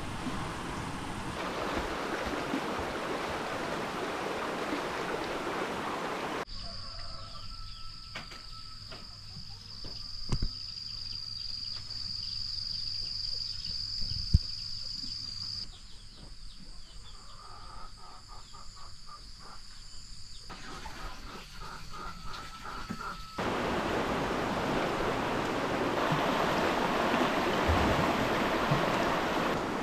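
Outdoor nature ambience in three parts: a steady rushing noise, then a quieter forest with a steady high-pitched insect drone and scattered bird calls, then water rushing over a river rapid for the last quarter.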